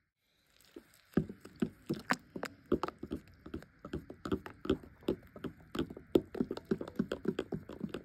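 A spoon stirring a protein shake in a cup, clinking and knocking against the sides in quick, uneven strokes, several a second. It starts about a second in.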